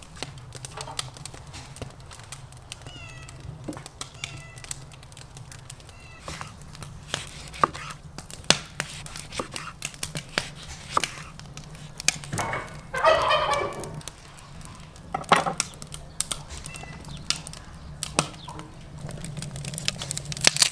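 Chef's knife slicing tomatoes and lemon on a wooden cutting board, sharp taps of the blade on the board at irregular intervals. About 13 seconds in, a loud wavering call lasts about a second and a half.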